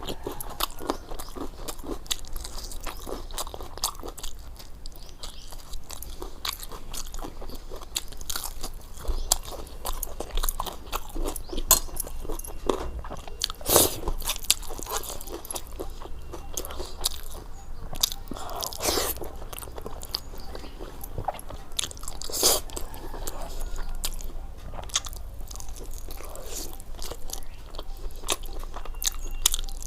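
Close-miked eating: continuous chewing with frequent crisp crunches, and a few louder bites scattered through.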